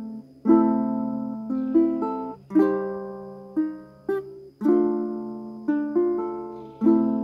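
Solo ukulele played without singing: a chord struck about every two seconds and left to ring out, with lighter strums and picked notes in between.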